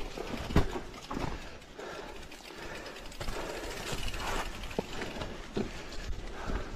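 Mountain bike riding down a dirt trail: tyres on loose dirt with irregular knocks and rattles from the bike over bumps, a sharp knock about half a second in.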